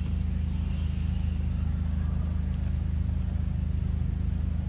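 A steady low hum of an engine running at idle, with an even, fast pulse.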